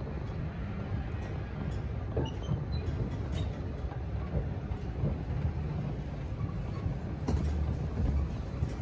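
Pickup truck's engine running at low speed as it slowly reverses a dumpster trailer, heard from inside the cab as a steady low rumble, with a few clanks from the trailer over rough dirt.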